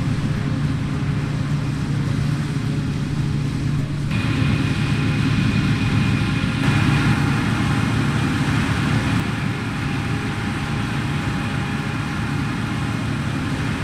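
Combine harvester running steadily, a constant low engine drone with field-working noise, which changes abruptly about four seconds in and again about six and a half seconds in.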